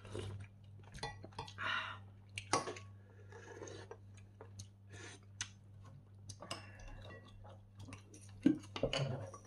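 Eating sounds: a metal spoon clinking against a pot of beef rib soup and a small ceramic dish in scattered light clicks, with chewing in between. A steady low hum runs underneath.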